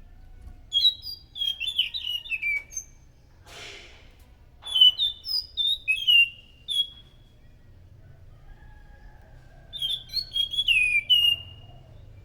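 Anis macan thrush singing: three bursts of loud, clear whistled notes, each note slurring down in pitch, with a brief hiss about three and a half seconds in.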